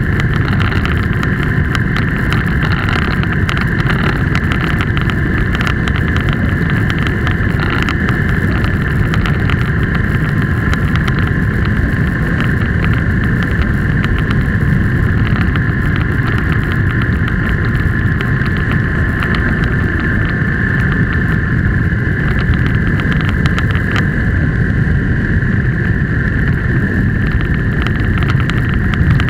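A vehicle driving steadily along a road: engine and road noise as one constant, unchanging drone.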